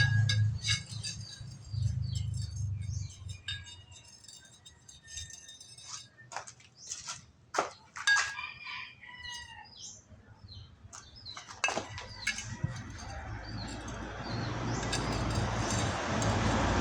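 Birds chirping, with a few sharp clicks in between; a low hum fades away at the start and a steady rushing noise swells up over the last few seconds.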